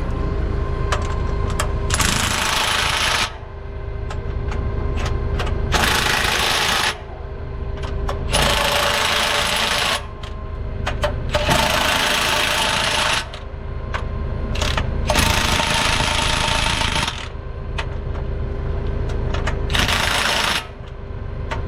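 Impact wrench hammering the wheel nuts of a CAT 972 wheel loader's solid rubber wheel snug, in about six separate bursts of one to two seconds each.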